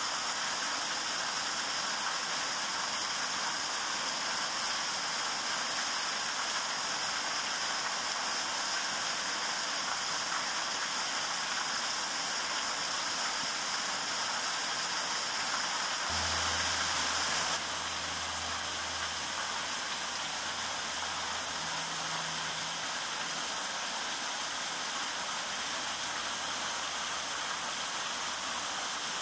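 Steady hiss throughout, with a low hum coming in a little past halfway and staying to the end.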